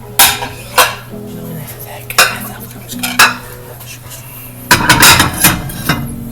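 Dishes and cutlery clinking and clattering as they are handled: four separate sharp clinks, then a denser run of clatter near the end.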